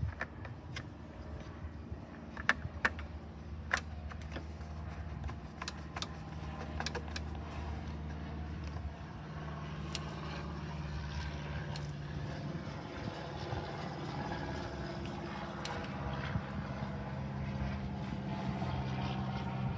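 Sharp plastic clicks and knocks from a push mower's gas tank and engine cover being handled and fitted, a few of them loudest a few seconds in, over a steady background engine hum whose pitch shifts slowly.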